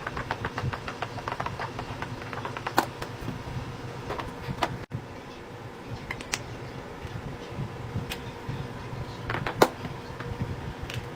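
Fidget toys being clicked and popped: a quick run of small clicks in the first couple of seconds, then scattered single sharp clicks, the loudest near the end, over a steady low hum.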